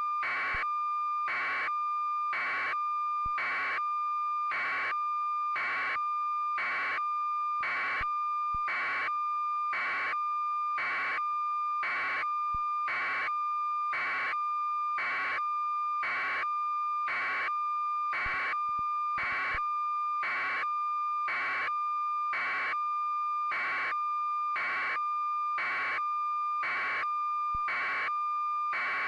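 Electronic beep tone: a steady high-pitched tone with a pulsing buzz over it, repeating evenly about one and a half times a second.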